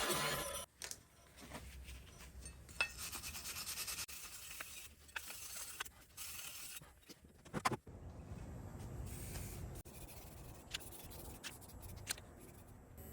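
Faint rubbing and scraping with scattered light clicks and clinks, the sound of hand work with small tools and parts. The sharpest click comes a little past halfway.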